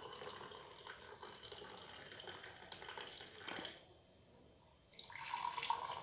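Coffee poured from a thermos flask into a mug, a faint steady splashing stream. It stops for about a second past the middle, then pouring into a second mug starts.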